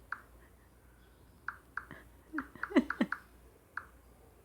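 Keyboard typing: irregular short clicks of a message being typed, coming in a quick run a little past halfway, with a few brief murmured voice sounds among them.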